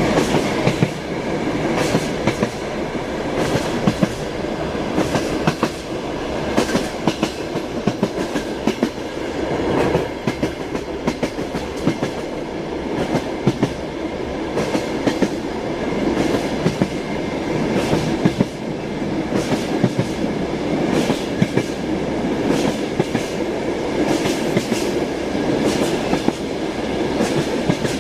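Wheels of a moving train clattering over rail joints, a continuous rumble with repeated clickety-clack knocks.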